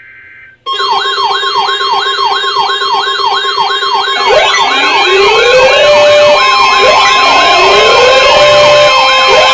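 A brief burst of EAS header data tones, then loud electronic sirens start about a second in: a fast yelp sweeping up and down several times a second, joined about four seconds in by slower rising wails, over steady tones.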